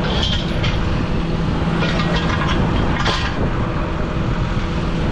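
John Deere tractor's diesel engine idling steadily, with a heavy steel chain clanking against a steel bar as it is handled, in short rattles near the start and about two and three seconds in.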